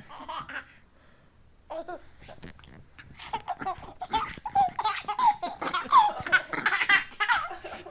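A baby laughing in quick repeated bursts, starting about two seconds in and getting louder and busier through the second half.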